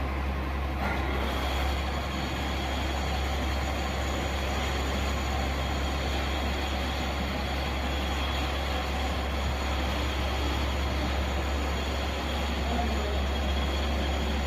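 Metalworking lathe running steadily, giving a constant low hum with a faint steady high whine above it.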